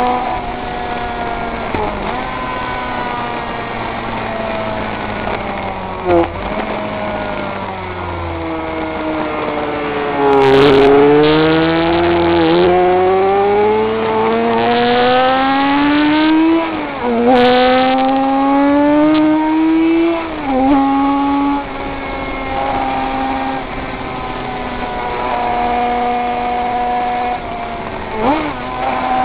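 König 500 cc two-stroke flat-four racing motorcycle engine, heard onboard. It revs up through several gears, the pitch climbing and dropping back sharply at each change from around a third of the way in, then holds steady revs for the last several seconds.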